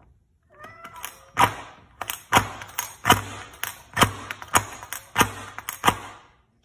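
A cat pawing and batting at fittings on a door, making sharp rattling clicks about twice a second.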